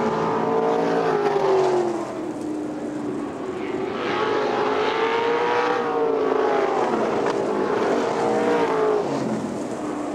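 Winged dirt-track sprint cars' V8 engines running hard around the oval, several overlapping, their pitch climbing and dropping in waves every few seconds as the cars go on and off the throttle through the turns.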